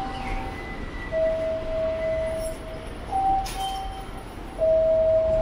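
Two-tone electronic chime sounding twice, each time a short higher note followed by a longer lower one, the kind of guide chime sounded at a station entrance. A brief clink cuts in about three and a half seconds in.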